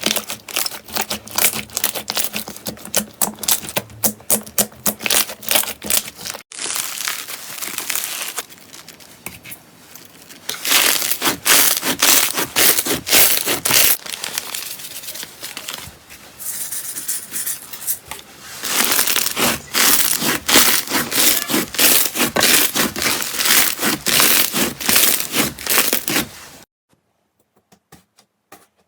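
Slime being squeezed and pressed by hand, giving dense rapid crackling and popping clicks that swell and fade in stretches. The sound breaks off abruptly about six seconds in and turns to a much quieter, sparse clicking near the end.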